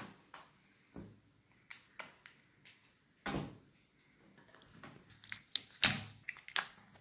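Scattered plastic clicks and knocks as batteries are fitted into the battery compartment of a plastic electric bubble gun, the sharpest knocks about three seconds in and just before six seconds.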